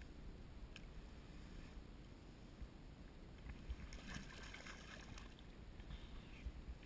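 A hooked speckled trout splashing and thrashing at the water's surface about four seconds in, over faint, steady low water noise.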